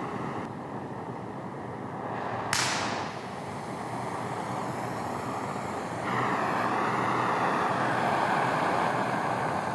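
Oxyacetylene cutting torch being lit and set: a steady gas hiss, a sudden sharp pop about two and a half seconds in, then the flame's rushing noise grows louder about six seconds in as the gas is turned up toward a neutral flame.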